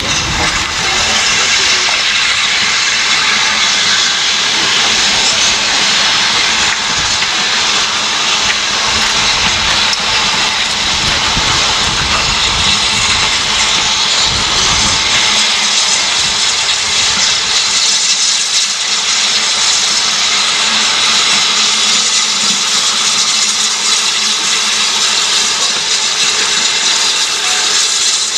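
BR Standard Class 9F 2-10-0 steam locomotive coming slowly into the platform, with a loud steady hiss of escaping steam. A low rumble of the engine on the rails fades out a little over halfway through.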